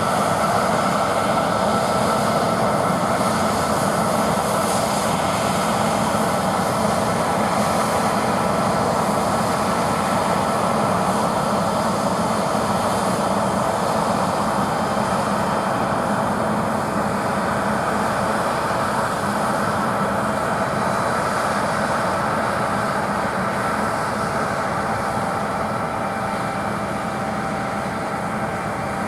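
John Deere T670i combine harvester running under load while harvesting barley: a steady machine drone with a steady high whine over it, growing a little quieter near the end.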